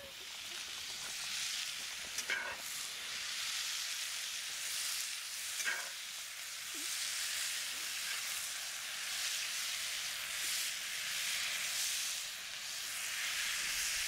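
Marinated vegetables and turkey kielbasa sizzling in oil in a 12-inch Lodge cast iron skillet over campfire coals, being stirred with a long spatula; a steady frying hiss that swells and eases, with two brief knocks about two and six seconds in.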